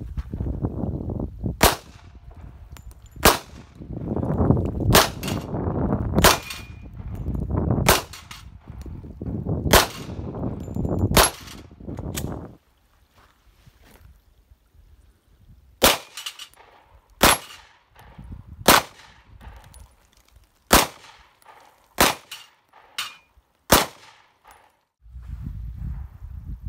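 Handgun shots fired one at a time, about fifteen of them a second or two apart, with a pause of a few seconds midway. Hits on steel plates ring out with a metallic clang.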